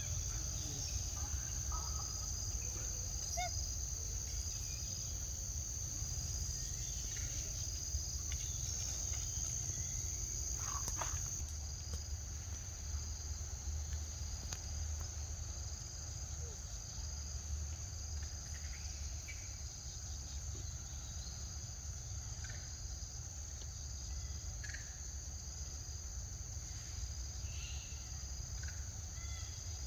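Steady insect chorus: one high, continuous trill with a second high note pulsing about once a second. Under it runs a low rumble, with scattered short chirps.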